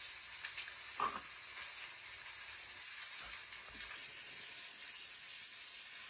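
Steady sizzling hiss of food cooking in a hot pot on the stove, with a few light clicks in the first second or so.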